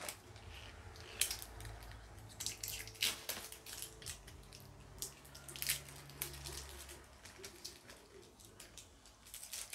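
Scattered small clicks and taps of a liquid lipstick and its plastic packaging being handled and opened, over a low hum that fades out about two-thirds of the way through.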